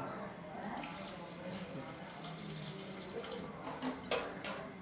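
Water poured from a steel tumbler into a hole in a mud floor, trickling and splashing. A couple of sharp knocks come about four seconds in.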